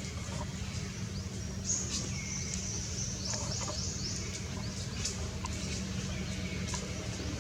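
Small birds chirping in short, high calls, with a quick run of four falling notes about three and a half seconds in, over a steady low rumble.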